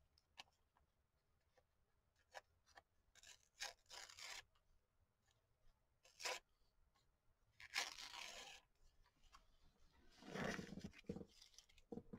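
Faint paper tearing in several short pulls, spread out with pauses between them, as the white border is torn off a cut-out piece of collage paper.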